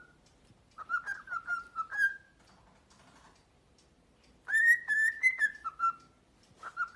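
Pet cockatiel whistling: two quick phrases of short clear notes, the first about a second in and the second from about four and a half seconds, each ending on a longer held note.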